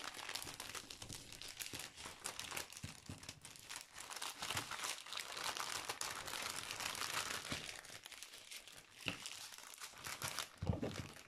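Clear plastic bags crinkling and rustling as they are handled and pressed together, with a couple of soft thumps near the end.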